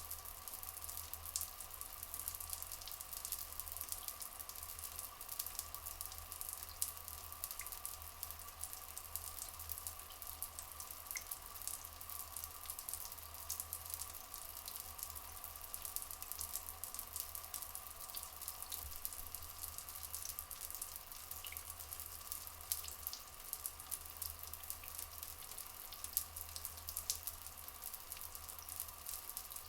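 Steady trickling, flowing water with fine crackling drips and splashes throughout, as in a small forest stream. There are a few faint, brief high chirps.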